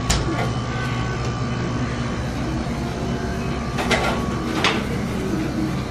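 Steady low hum of a sandwich shop's refrigerated counter, coolers and ovens, with a couple of short clatters about four seconds in.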